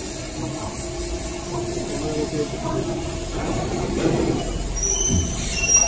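Automatic toilet paper roll packing machine running: a steady mechanical rattle with a low hum, a brief high squeal about five seconds in, and a couple of knocks near the end.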